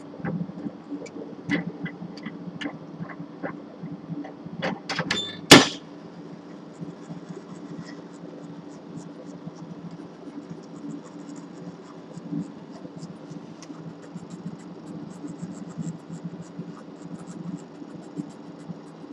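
Quantulus liquid scintillation spectrometer's sample conveyor mechanism under a steady machine hum, clicking and knocking over the first few seconds with one loud clunk about five and a half seconds in, then the hum continuing with faint ticking.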